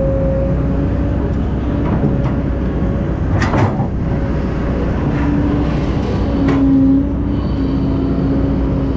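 Heavy diesel earthmoving machinery, an excavator loading dump trucks, running steadily with a deep engine drone. A few sharp knocks cut through it, the loudest about three and a half seconds in.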